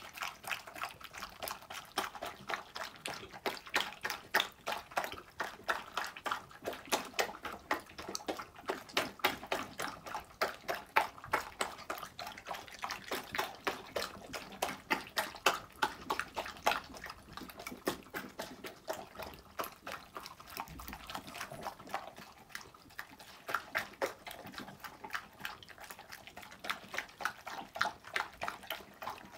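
A poodle and a golden retriever eating side by side from bowls: quick, wet chewing, slurping and lapping, several smacks a second without let-up.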